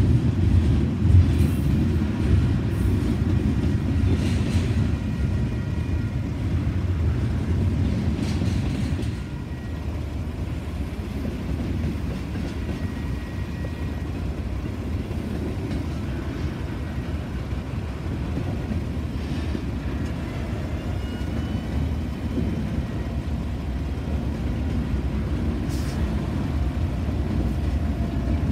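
Double-stack intermodal freight train rolling past: a steady low rumble of wheels on rail, a little louder for the first nine seconds or so.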